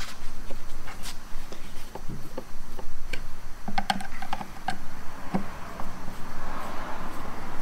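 A hand Phillips screwdriver turning screws into T-nuts through a kayak motor mounting plate, making scattered small clicks and ticks as the tip seats and the screws turn. An even rushing noise rises near the end.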